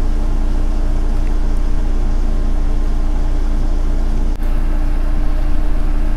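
A steady low hum with a few fixed pitches, with a short click and dip in level about four seconds in.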